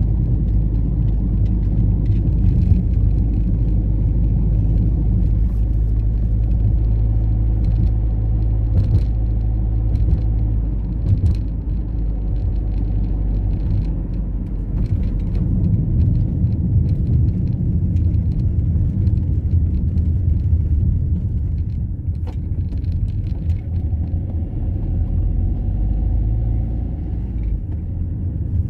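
Car driving on a winding road: a steady low rumble of engine and road noise, with the engine note changing about eleven seconds in.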